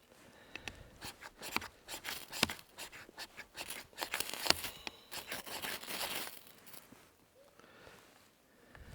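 Irregular sharp scrapes and crinkling crackles, busiest in the middle: dry tinder being handled and a ferro rod struck to light it in a small wood stove.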